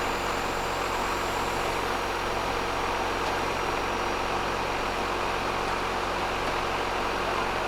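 Delivery truck's diesel engine running steadily at idle, with an even hum and no change in pitch.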